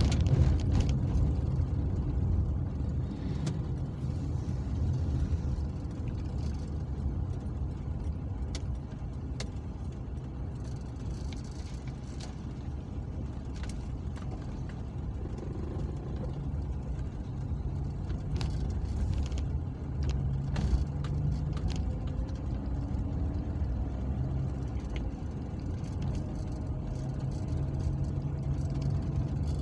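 Car engine and road noise heard from inside the cabin while driving: a steady low rumble with a few light clicks and rattles, and a faint tone rising slowly near the end.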